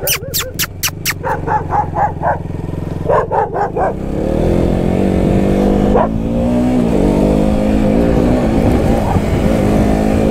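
A dog barking rapidly at a passing motorcycle, a quick run of barks in the first two seconds and another short run about three seconds in, over the engine running at low speed. From about four seconds in the motorcycle engine accelerates, its pitch rising, with a brief dip near seven seconds.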